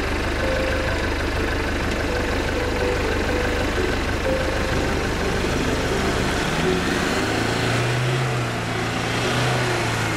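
Toyota Hilux pickup carrying a camper cell, its engine pulling under load as it crawls over a rough, rocky gravel track, with gravel crunching under the tyres. The engine note rises about two-thirds of the way through.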